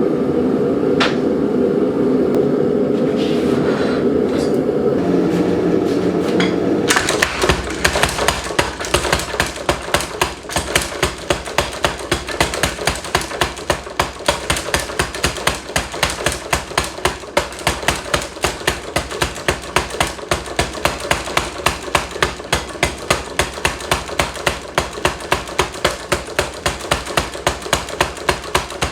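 Power hammer forging a bar of 3/4-inch square steel stock, striking in a rapid even rhythm of about three to four blows a second. It starts about seven seconds in, after a steady running noise.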